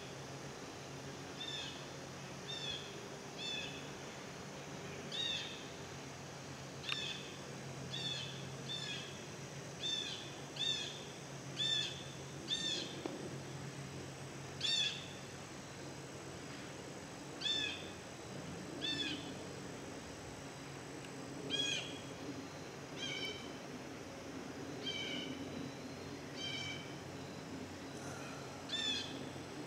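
A bird calling over and over: short, downward-sliding calls, about one every second or two, with a few pauses between runs.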